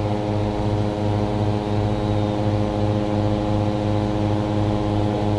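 Engine-driven inflator fan running steadily, blowing cold air into a hot-air balloon envelope during cold inflation; a constant engine drone with a slight regular pulse.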